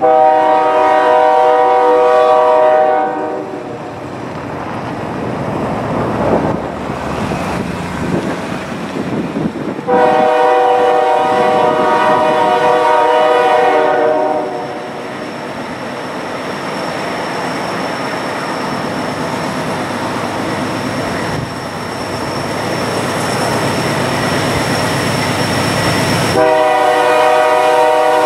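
GE C40-8 (Dash 8-40C) diesel locomotive sounding its air horn in long blasts: one of about three seconds at the start, another of about four seconds some ten seconds in, and a third starting near the end. Between the blasts the locomotive's 16-cylinder diesel works under load, with wheels rumbling on the rails, growing louder as the train approaches.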